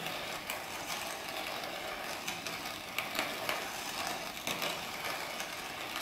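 Hand-cranked ceramic burr coffee grinder, a cheap Hario copy, turned steadily and crushing coffee beans: a continuous crunching with many small clicks.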